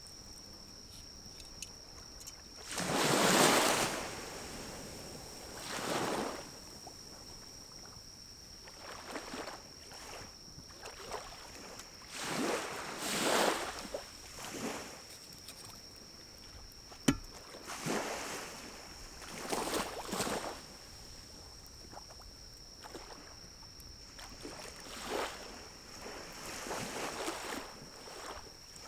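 Pine cone fire burning in a small wood-burning camp stove: whooshing swells of noise about a second long every few seconds, and a single sharp pop about seventeen seconds in.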